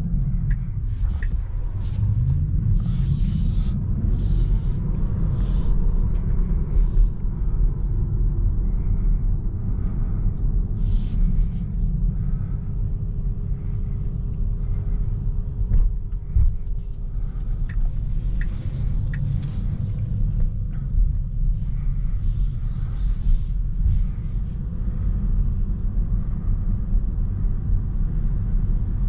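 Cabin noise of a Tesla Model 3 Long Range Dual Motor driving at town speed: a steady low rumble of road and tyre noise. Brief hissing swells come and go every few seconds.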